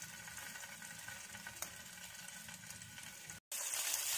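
Paneer cubes sizzling faintly in hot mustard oil as they fry, with a few light crackles. The sound drops out briefly about three and a half seconds in and comes back louder.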